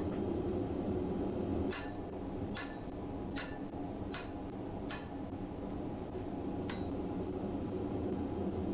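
A run of light metallic clinks, five of them about a second apart and then one fainter one, over a steady low hum.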